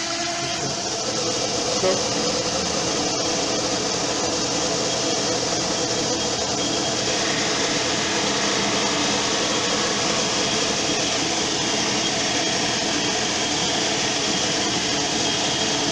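Metal lathe running steadily with the spindle turning, its motor and gearing giving a constant whir with many steady tones, while a 1-1/8 inch high-speed steel drill bit bores out a polyurethane bushing held in the chuck.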